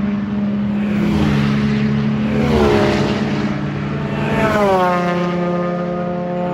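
Race car engines passing one after another on a formation lap, each engine tone dropping in pitch as the car goes by, about two and a half and four and a half seconds in. A steady low drone runs underneath.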